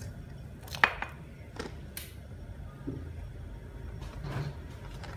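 A pot of soup at a rolling boil, giving a steady low bubbling hum. A few sharp knocks sound over it, the loudest about a second in.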